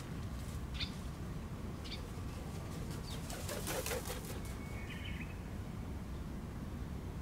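A pigeon's wings flapping as it takes off, a quick flurry of wingbeats about three and a half seconds in. Two short high bird chirps come in the first two seconds.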